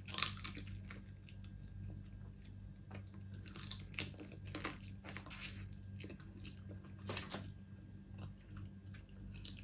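Close-miked eating of crab: irregular chewing and crunching, with a few louder crunches scattered through. A steady low hum runs underneath.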